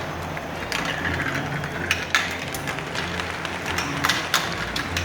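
Computer-simulated marbles clicking and clattering against one another and the playing field, in irregular sharp knocks over a low steady hum.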